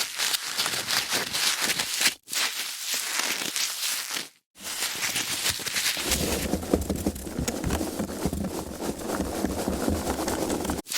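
Foam packaging being handled: a dense run of small crackles and rubbing, in three takes separated by brief silences about two seconds and four and a half seconds in, the last one heavier and fuller from about six seconds in.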